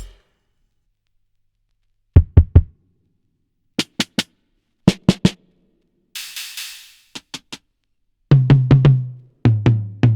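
Individual hip-hop drum samples from EZdrummer 3's Hip-Hop EZX library, auditioned one sound at a time in quick groups of two or three hits with dead silence between groups. The groups are low thumps, sharp cracks, a hissy hit that rings out, and near the end deeper booms with a held pitch.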